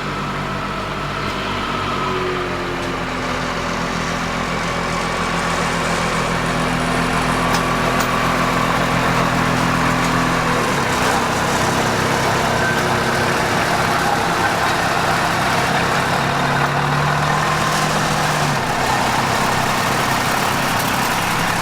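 Diesel locomotive of a 15-inch-gauge miniature railway, its engine running steadily while shunting. The engine note changes about halfway through, when a low hum drops away.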